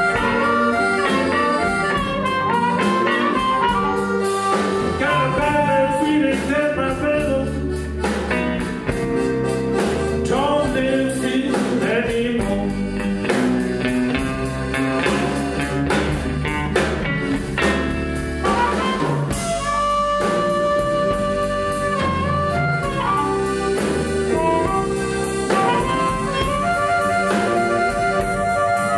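Live blues band playing a slow blues, with a blues harmonica taking the lead in long held, bending notes over electric guitar, accordion, bass and drums.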